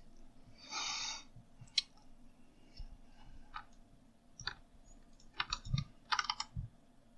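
Computer keyboard keys and mouse buttons clicking in scattered single presses, with a quick run of clicks near the end and a short scuffing noise about a second in.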